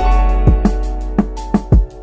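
Background music with a steady drum beat and held instrumental tones.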